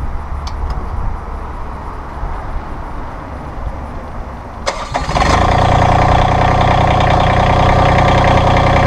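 Massey Ferguson GC1720 sub-compact tractor's three-cylinder diesel engine starting a little over halfway in: a short crank, then it catches and settles into a steady idle. A low, steady rumble comes before the start.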